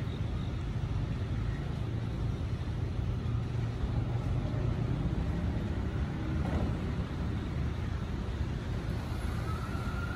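Steady low rumble and hum of a JR East E217 series electric train standing at the platform with its doors closed. A faint whine rises and then falls near the end.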